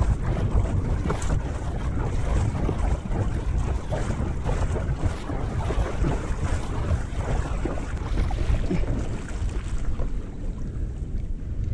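Steady wind buffeting the microphone over water lapping and splashing against the hull of a fishing kayak on open sea.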